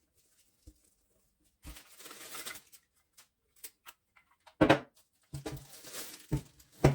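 Unboxing handling noise: a short rustle about two seconds in, then several sharp knocks near the end as items are lifted out of the box and set down.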